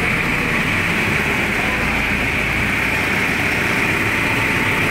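Steady rush of air with a low rumble underneath, the airflow of a car paint spray booth.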